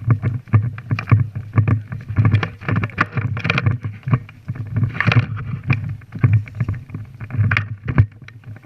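Footsteps of a player on the move, a quick even rhythm of soft thuds, about three a second, with gear and clothing rustling against each other.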